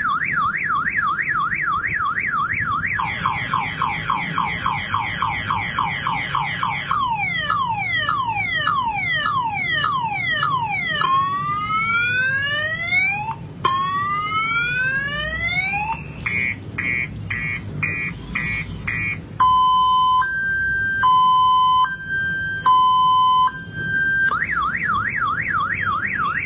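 Multi-tone car alarm siren cycling through its patterns. It opens with a fast warble that then quickens, moves to rapid falling chirps, then to rising whoops about twelve seconds in, then to a quick stuttering chirp, then to a slow high-low two-tone. The warble starts again near the end.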